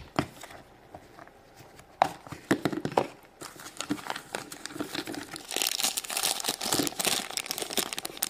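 Crinkly plastic wrapping of a surprise-toy package being handled and torn open: a few sharp snaps and clicks about two to three seconds in, then steady crinkling through the second half.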